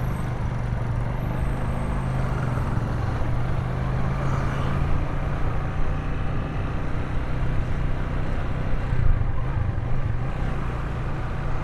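Motorcycle engine running steadily at low speed while being ridden, with a constant rush of wind and road noise.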